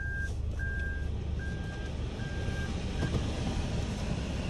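Toyota's in-cabin reverse warning beeper: an even series of single-tone beeps a little under a second apart, stopping about three seconds in, as the car backs out of a parking space. A low steady cabin rumble from the running car sits underneath.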